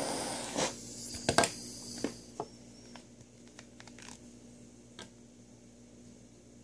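Butane torch flame hissing, cut off about half a second in. A few clicks and knocks follow, the loudest just over a second in, as the torch is set down on the table and a plastic e-liquid bottle is handled.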